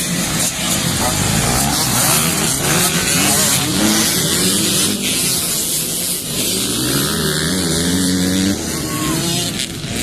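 Several enduro dirt bike engines revving and pulling away together at a race start, their overlapping pitches rising and falling.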